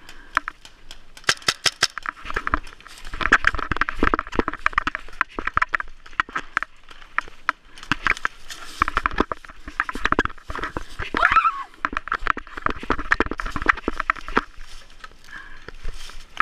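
Footsteps crunching quickly through dry leaf litter and twigs as a person runs and crouches, a dense patter of sharp crackles and knocks.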